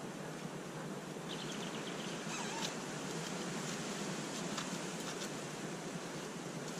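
Faint, high chirping of small birds, several short calls between about one and five seconds in, over a steady rushing background noise.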